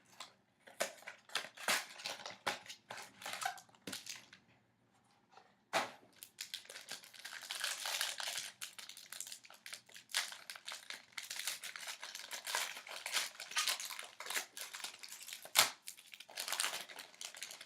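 Packaging of a sealed box of hockey trading cards crinkling and tearing as it is opened, in dense crackling runs with a pause of about a second and a half around four seconds in.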